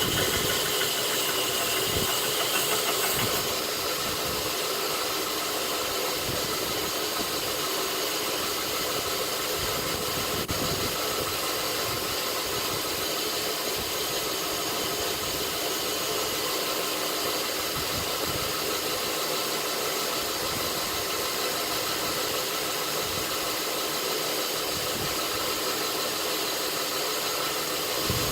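Knife-making belt grinder running steadily: a continuous motor hum with a hiss of the belt that holds at an even level throughout.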